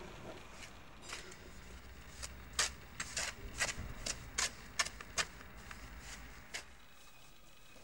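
Irregular sharp clicks and scrapes, about a dozen, from a gloved hand scooping and working a white powdery mix in a battered metal bucket.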